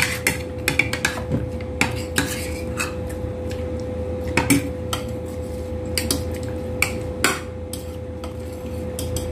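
Metal utensils clinking, tapping and scraping against dishes in irregular, scattered strikes, over a steady hum.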